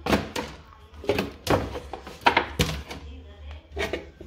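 Plastic tubs and containers knocking and clattering as they are moved about in a kitchen cupboard: about seven sharp, irregular knocks.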